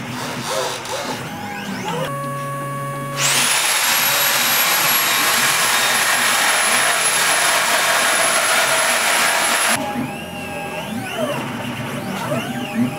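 Background music, broken for about six seconds in the middle by the loud, steady whine and hiss of a MAX7 CNC milling machine's spindle cutting. The whine rises quickly in pitch as the sound begins, then holds steady until it cuts off suddenly.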